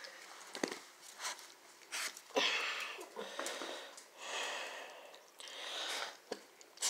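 Handling noise: soft rustling of a quilt and a few sharp clicks as a hand reaches among the puppies and lifts one up, in several short stretches.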